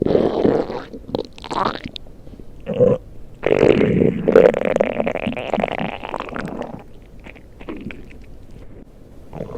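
A person's stomach growling: a run of irregular gurgles and rumbles, the longest and loudest starting about three and a half seconds in and lasting some three seconds, then softer gurgles near the end.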